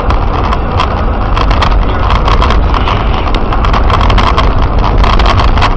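Loud rumble of a moving vehicle, with many irregular knocks and rattles throughout.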